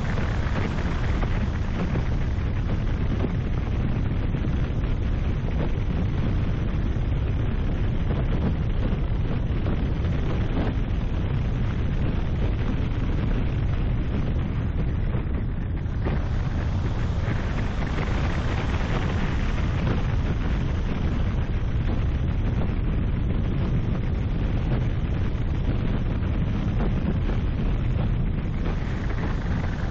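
Wind buffeting a bonnet-mounted camera's microphone as the car drives along, a steady heavy rumble with the car's road and engine noise underneath.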